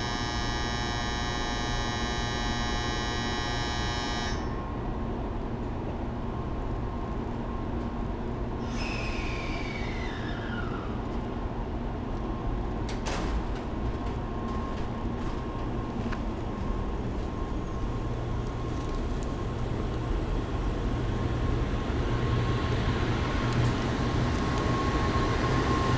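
N700 Series Shinkansen train pulling out of the station. A steady buzzer-like tone stops about four seconds in. A falling electric whine follows, then a steady high tone from the drive, over a low rumble of the carriages that grows louder as they pass near the end.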